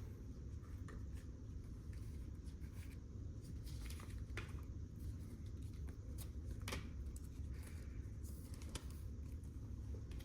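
Trading cards being handled: soft, scattered rustles and clicks as cards are flipped through and slid about, over a steady low hum.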